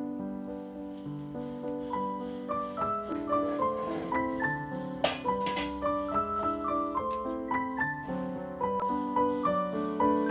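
Background piano music, a steady flowing run of notes, with two short clicks a little past halfway.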